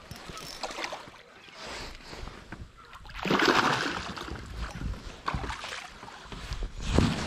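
A splash in the water beside the boat about three seconds in, with a second one near the end.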